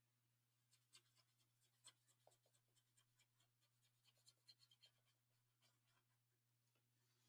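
Near silence: faint, quick scratchy strokes of a watercolour paintbrush on paper, starting about a second in and stopping near the end, over a steady low hum.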